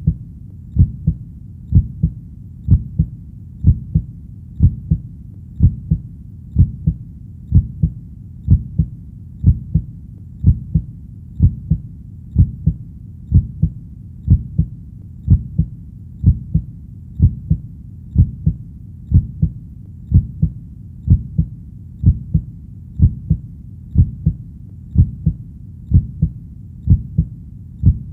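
Human heartbeat sound, a steady low double thump (lub-dub) repeating about once a second.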